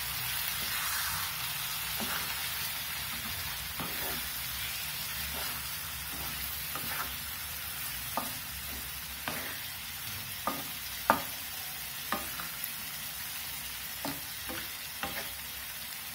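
Thick egg masala gravy sizzling and bubbling in a nonstick pan, with a wooden spatula stirring through it and tapping against the pan several times, the sharpest tap about two-thirds of the way in.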